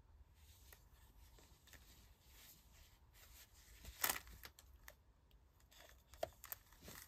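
Mostly near silence, with faint handling sounds of a plastic doll head being worked by hand: soft rustles and small clicks, loudest about four seconds in, with a few more clicks near the end.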